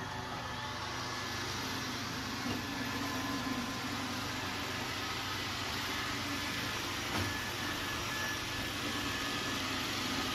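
Pet water fountain running: a steady hum and hiss from its pump and circulating water.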